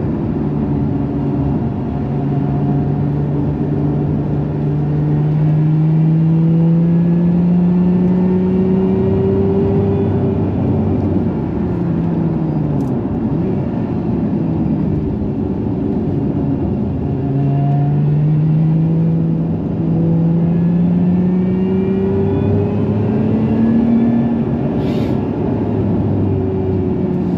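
Lotus Emira's supercharged V6 engine pulling the car along in sport mode. Its revs climb slowly and fall back several times, as with gear changes.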